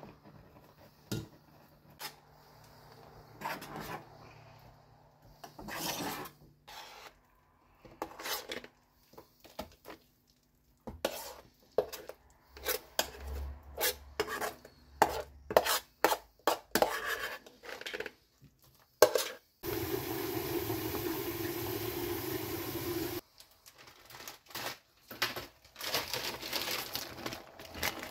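Dishes being handled: a spoon and pot knocking and scraping in irregular clinks, with a steady hiss lasting about three and a half seconds in the middle.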